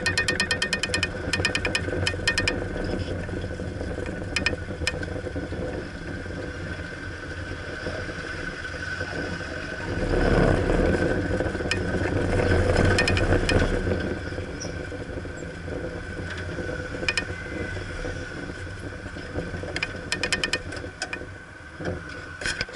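Car engine and road noise heard from inside the moving car, with a fast rattle in the first couple of seconds. The rumble grows louder for a few seconds about ten seconds in, then settles again.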